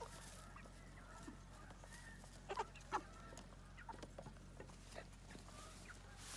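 Cornish Cross broiler chickens calling softly with short, scattered calls, two of them louder about two and a half and three seconds in.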